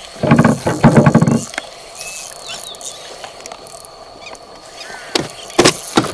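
Spinning reel cranked hard in a fast burst for about a second, its gears clicking rapidly, as a lure is retrieved. A few sharp knocks come near the end.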